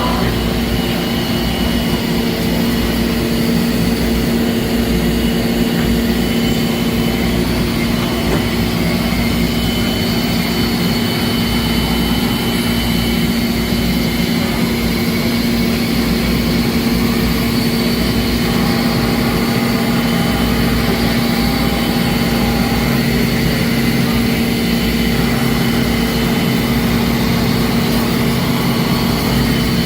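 Traub TNL 26 CNC Swiss-type lathe running, a steady machine hum with a constant low tone and fainter higher whines.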